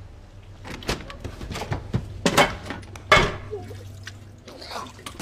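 Several dull thuds and knocks, then a person coughing and gagging over a toilet near the end.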